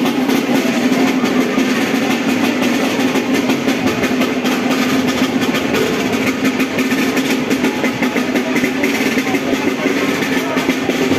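Street band's snare drums playing a continuous fast rhythm, with a steady low tone held underneath.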